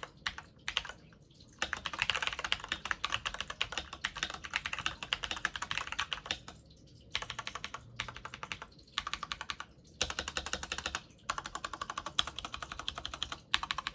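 Typing on a Glorious GMMK2 mechanical keyboard with hand-lubed Glorious Panda tactile switches and PBT keycaps: fast runs of keystrokes in bursts, with short pauses between.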